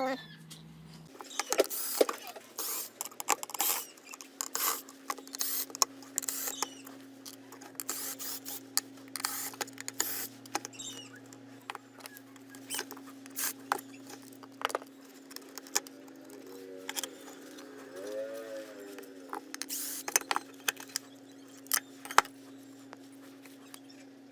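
Hands handling and moving parts of an opened loudspeaker: irregular clicks and knocks of plastic and circuit boards. A steady low hum comes in about four seconds in.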